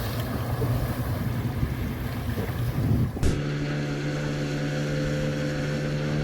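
Motorboat engine running amid wind and water noise; about three seconds in the sound switches abruptly to a steady, even engine hum.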